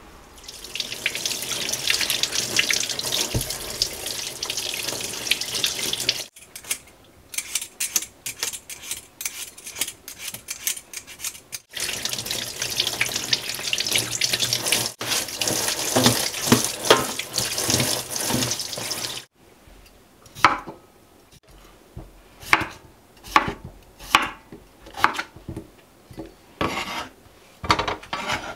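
Kitchen tap running into a stainless steel sink while peeled potatoes are rinsed under it, with a run of short scraping strokes between two spells of running water. Then a knife cuts potatoes on a wooden cutting board: about ten separate cuts, roughly one a second.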